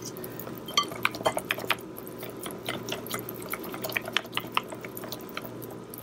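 Wire whisk beating a thick egg-and-flour batter in a glass bowl: wet squishing with irregular light clicks of the wires against the glass, several a second.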